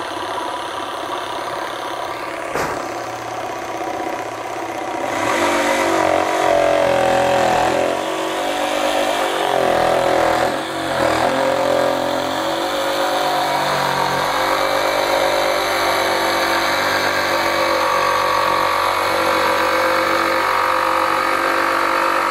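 SKIL 12V brushless cordless jigsaw cutting a curve in a pressure-treated board, running in auto mode. It runs slower at first, then speeds up and gets louder about five seconds in as the blade bites into the wood, and its pitch wavers with the load as it follows the curve.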